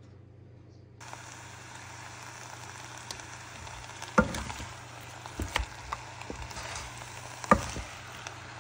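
Meat, chopped onion and spices sizzling in a hot nonstick pot, the sizzle starting suddenly about a second in. From about four seconds in a wooden spoon stirs them, knocking against the pot a few times, loudest near the end.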